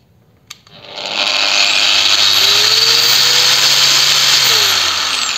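Procraft PW 1100 ES 125 mm angle grinder with a wire brush fitted, running free at its top speed setting. It is switched on with a click about half a second in, spins up smoothly over about a second, runs steadily, then is switched off near the end and winds down. The gradual run-up is its soft-start feature working.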